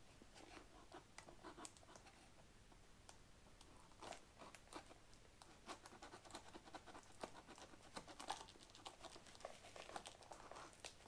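Faint, irregular crackling, clicking and tearing of cardboard boxes being cut and opened with a knife and their packaging handled.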